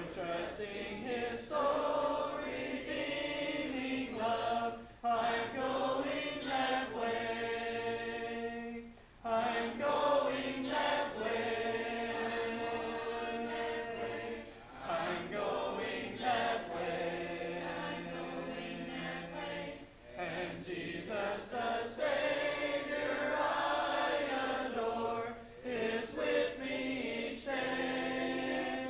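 Congregation singing a hymn a cappella, without instruments, in phrases broken by short pauses for breath about every five seconds.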